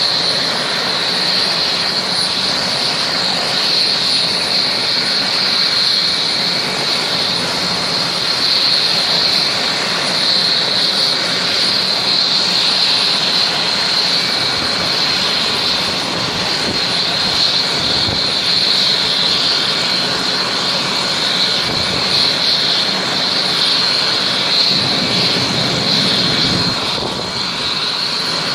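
Air-ambulance helicopter running close by: a steady high turbine whine over a constant loud rush of rotor and wind noise.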